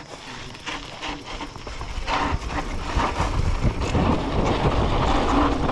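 Silverback Stride SX 29 hardtail mountain bike rattling and clattering over a rough trail, with a rushing rumble of tyres and air that grows louder from about a second in.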